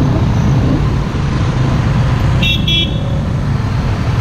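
Steady low rumble of road traffic, with two short, high-pitched vehicle-horn toots in quick succession about two and a half seconds in.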